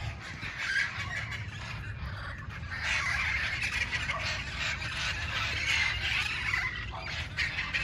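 A large flock of red-crowned amazon parrots calling at once, a dense, unbroken chorus of overlapping squawks and screeches.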